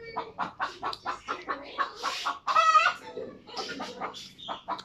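Chicken calling once, a short loud pitched cluck-like squawk about two and a half seconds in, over small clicking and smacking sounds of chewing food by hand.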